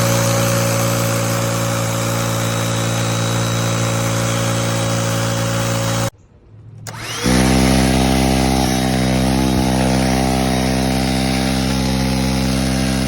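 Cordless BLACK+DECKER handheld pivot vacuum motors: one runs with a steady whine and cuts off about six seconds in, and after about a second of quiet a vacuum motor switches on, spins up quickly and runs steadily at a different pitch.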